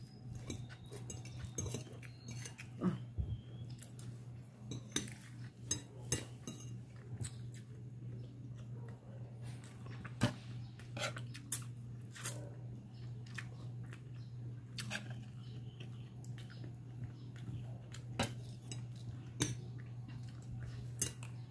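Eating by hand from a plate: irregular clicks and clinks of fingers, plate and a metal cup, with chewing, over a steady low hum.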